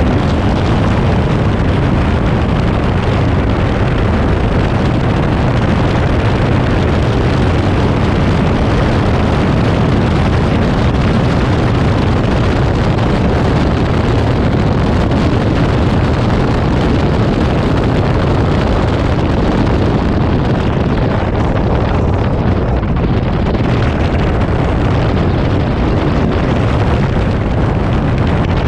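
Open-cockpit Seven-style sports car at speed, heard from an onboard camera: the engine running hard under heavy wind buffeting on the microphone. The engine eases off in the second half as the car slows for a corner.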